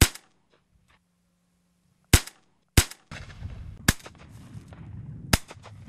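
Five shotgun shots: one right at the start, two about two seconds in less than a second apart, then two more about four and five and a half seconds in. A steady low outdoor rush sets in behind the later shots.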